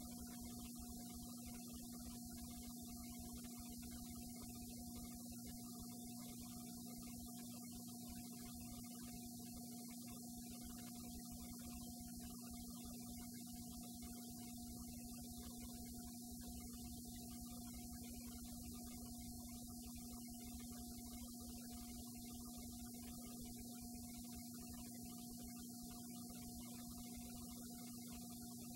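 Faint, steady electrical hum with a constant hiss, unchanging throughout: a low tone with a fainter higher one above it, on an otherwise silent recording.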